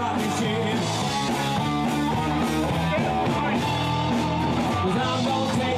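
Blues band music with guitar.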